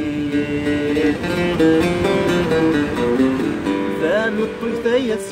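A man singing to his own plucked mandole accompaniment: held notes stepping up and down for the first few seconds, then sliding, ornamented vocal phrases near the end.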